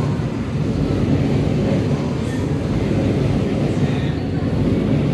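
Steady low rumble of city traffic, with no clear single event.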